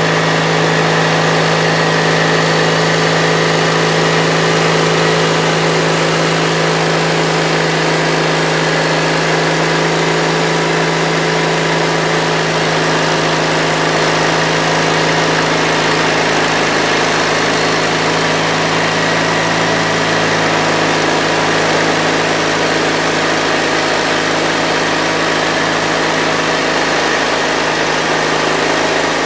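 Gas engine of a Mighty Mite band sawmill running steadily at a constant speed while the saw head travels along a cedar log, cutting a face.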